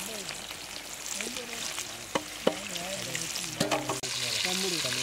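Battered chicken deep-frying in a wok of hot oil: a steady sizzle, with a few sharp crackles from the oil.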